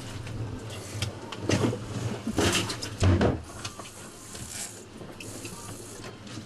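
A few hard knocks and bumps in the first half, over a steady low hum.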